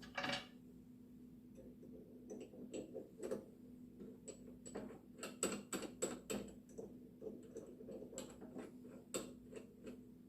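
Scattered light clicks and taps, irregular and quiet, over a faint steady hum: small handling noises in a workshop.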